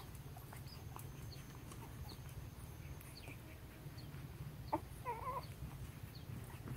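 Newborn puppies faintly squeaking in the den, with a sharp tick and then one short wavering whimper about five seconds in, over a low steady hum.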